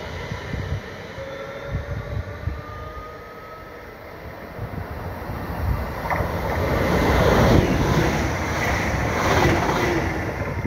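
ÖBB Cityjet electric multiple unit pulling away and accelerating, its electric drive whining upward in pitch over the first few seconds. From about six seconds in, a louder rushing noise swells up and stays strong toward the end.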